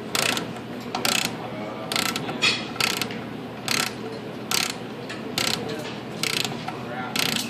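Ratchet of a torque wrench clicking in short bursts, about one back-swing a second, as a 17 mm socket turns the oil drain plug in.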